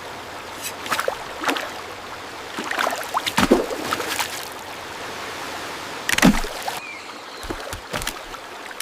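Running water with a series of irregular splashes, the loudest about three and a half and six seconds in.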